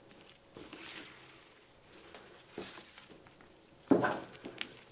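Soft swishing and rustling of satin ribbon laces being drawn through the metal grommets and across the fabric of a steel-boned corset, with a louder swish and a small click near the end.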